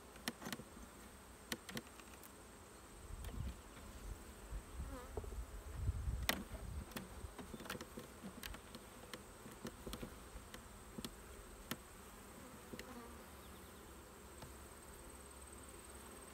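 Honeybees buzzing around an open hive, with scattered sharp clicks and knocks of a metal hive tool prying wooden frames that are stuck fast with propolis. The clicks are most frequent in the first half; near the end a frame is lifted free.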